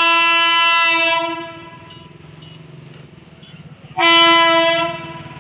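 Indian Railways electric locomotive sounding its air horn: a long blast that dies away about a second in, then a second, shorter blast about four seconds in. The low rumble of the approaching train runs underneath.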